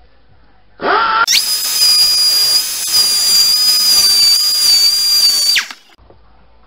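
Angle grinder spinning up about a second in, then cutting through a bolt for about four seconds: a loud, high steady whine over a grinding hiss, cut off when the trigger is released and the wheel winds down.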